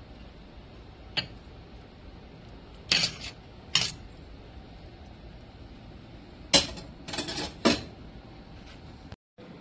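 Metal ladle clinking and scraping against a metal soup pot, a handful of sharp knocks in small clusters.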